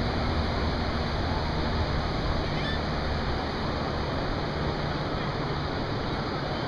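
Ocean surf washing on a beach, mixed with wind rushing over the microphone: a steady noisy rush with a low rumble.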